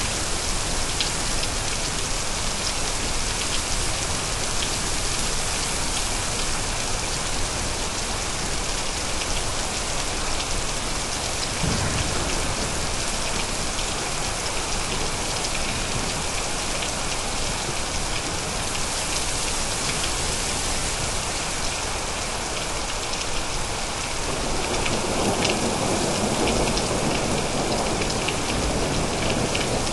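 Steady heavy rain falling, with the patter of individual drops. A short low rumble of thunder comes about twelve seconds in, and a longer thunder rumble builds over the last six seconds.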